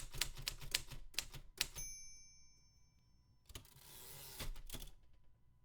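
Manual typewriter typing in quick keystrokes, then the margin bell dings about two seconds in and rings out, followed by the carriage being returned with a rushing slide that ends in a knock.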